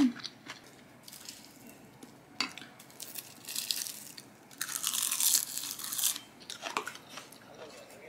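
Close-up crunching and chewing of a mouthful of rice wrapped in crisp roasted seaweed (gim), in short bursts about a second in, around three to four seconds in, and longest from about four and a half to six seconds. A single light click about two and a half seconds in.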